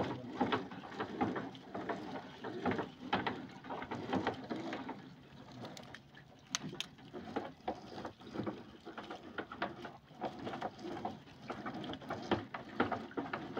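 Wet gill net with its floats being hauled by hand over the side of a small fishing boat: irregular rustling, knocks and splashes, with a quieter stretch about six seconds in.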